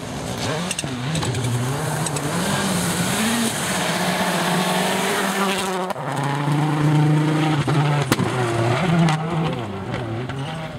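Rally car engine under hard throttle on a loose gravel stage, its pitch rising and falling with gear changes and throttle lifts through the corner, with a hiss of gravel under the tyres. A single sharp crack comes about eight seconds in.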